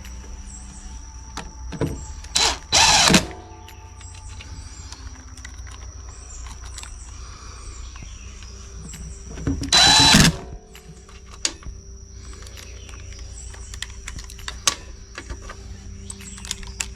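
Two short mechanical whirs about seven seconds apart, the second rising slightly in pitch. A steady high chirring, like crickets, continues underneath.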